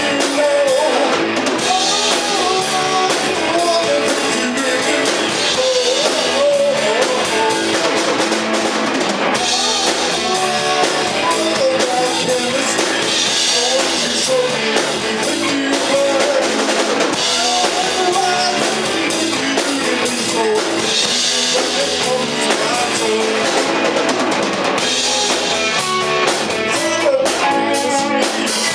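A small rock band playing live: electric guitar, electric bass and drum kit keeping a steady beat.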